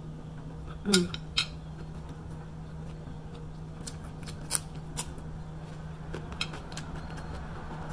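Metal fork and spoon clinking and scraping against a ceramic plate during a meal: a few sharp clicks, the loudest pair about a second in and two more around the middle, over a steady low hum.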